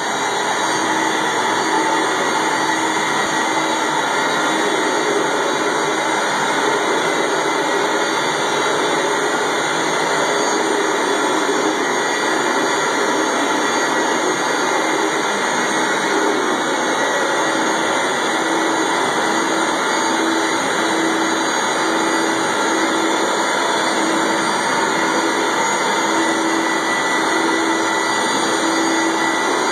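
Rotovac 360i rotary carpet extractor running as it is worked over carpet: a continuous suction roar with a steady hum, unchanging throughout.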